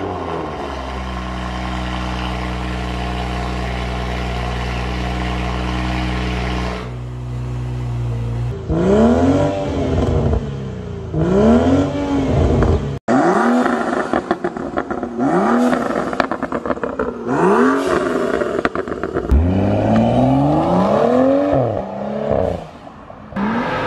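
BMW 340i turbocharged inline-six with an aftermarket valved exhaust idling steadily, then free-revved in a string of blips, each rising in pitch and falling back. After an abrupt cut about 13 seconds in, a second 340i is revved the same way in repeated blips.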